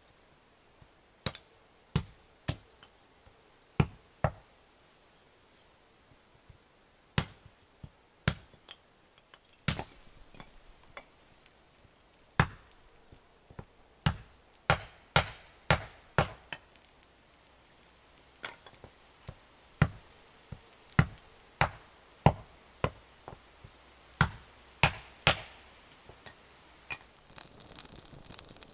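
Kindling being split on a wooden chopping block: a long series of sharp, separate chopping strikes, some in quick pairs and runs, others a second or more apart. Near the end, a wood fire crackling.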